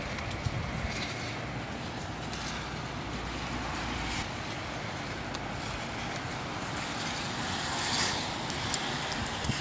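Gusty wind rushing through trees with rain falling, a steady hiss that swells once about eight seconds in.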